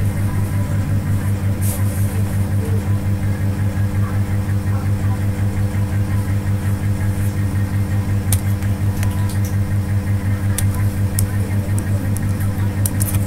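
A steady low hum with a fast, even pulse throughout. A few sharp keyboard clicks come in the last few seconds.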